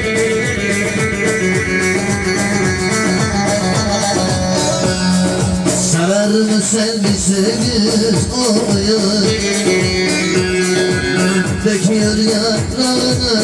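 Amplified Turkish folk dance music for a halay, an instrumental passage between sung verses: a plucked string instrument over a steady, even beat.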